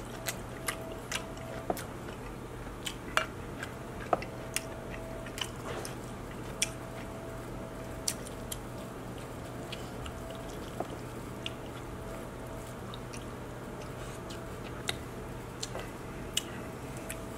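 A man chewing king crab meat close to the microphone: scattered short mouth clicks and smacks over a steady low hum.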